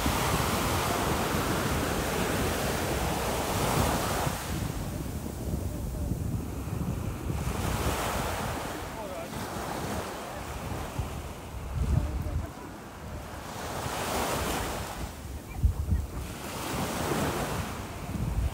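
Sea surf washing in surges that rise and fall every few seconds, with wind buffeting the microphone in low rumbles, sharpest twice in the second half.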